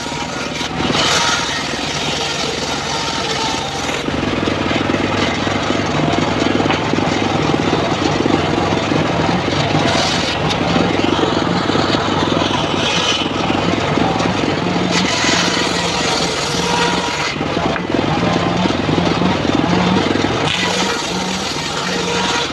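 Homemade engine-driven circular table saw running steadily, its blade ripping through teak slabs with louder, hissing cutting passes several times over the steady engine hum.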